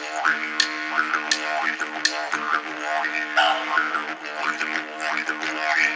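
Didgeridoo music: a steady droning tone with shifting overtones, punctuated by regular sharp clicks.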